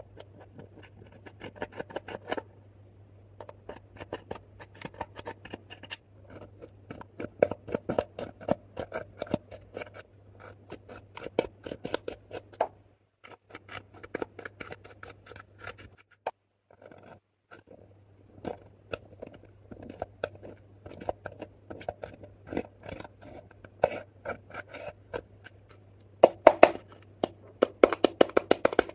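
Pressed eyeshadow and blush powder being scraped and crushed in a makeup palette with a metal tool: rapid, dry, scratchy crackling in runs with short pauses, loudest near the end.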